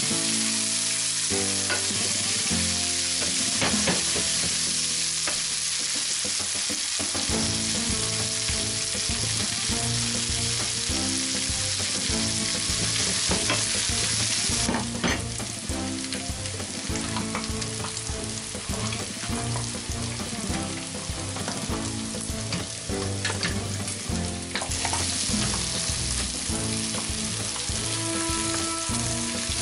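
Sliced chorizo and onion sizzling in olive oil in a frying pan, with a wooden spoon stirring and scraping through it. The sizzle drops away for about ten seconds around the middle, then comes back.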